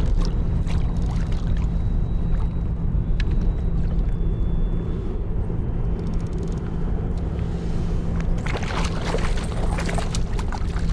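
Wind buffeting the microphone in a steady low rumble, with a constant low hum beneath it. A rush of higher-pitched noise comes in near the end.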